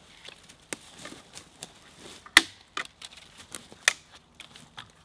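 Dry pine sticks snapping and cracking as they are gathered, in a series of irregular sharp cracks, the loudest about two and a half seconds in.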